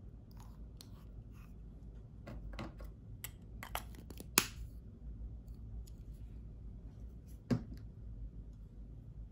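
Plastic lipstick cases being handled: a scatter of small clicks and taps as the cases are turned and their caps worked, with two sharper clicks about four and a half and seven and a half seconds in.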